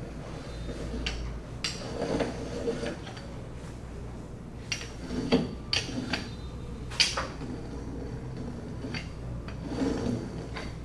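Rolling pin working a sheet of dough on a floured wooden table: soft rolling, rubbing strokes that come and go, broken by sharp clicks and knocks, the loudest a little after 5 s and at about 7 s. A steady low hum runs underneath.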